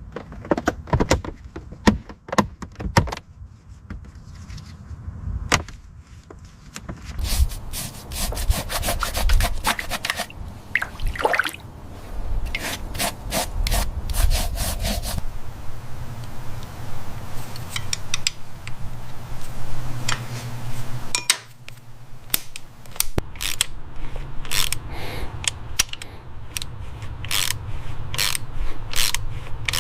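Workshop hand-tool work: repeated rubbing and scraping broken by many sharp clicks and knocks, with a low steady hum joining partway through.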